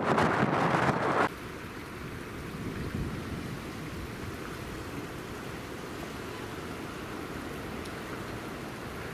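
Wind buffeting the microphone, which cuts off abruptly about a second in. What follows is a steady, quieter outdoor hiss with no distinct source.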